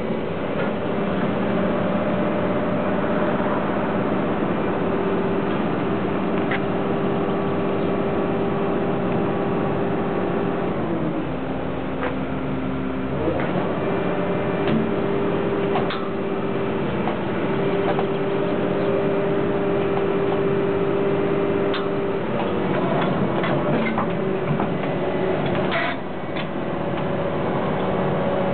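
Cat crawler excavator's diesel engine and hydraulics running steadily with a pitched drone; the pitch drops for a couple of seconds about eleven seconds in, then rises back. A few sharp metallic clicks and knocks from the machine and its grapple attachment.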